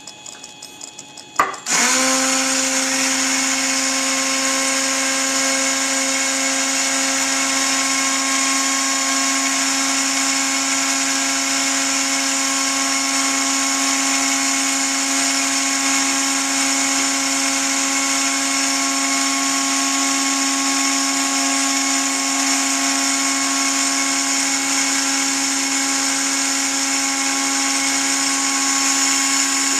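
A Dremel-type rotary tool driving a homemade belt-driven tool post grinder spindle is switched on with a click about a second and a half in, spins up almost at once, then runs steadily and loudly with a high whine of several tones. Its diamond burr is grinding the jaws of a mini lathe's three-jaw chuck.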